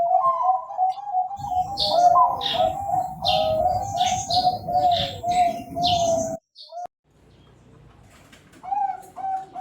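Zebra dove (perkutut) cooing: a warbling coo held on one pitch. After a short break, a quick run of short repeated coo notes comes near the end.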